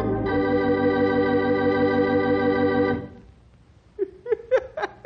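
Organ music: a held chord with a wavering vibrato that cuts off about three seconds in.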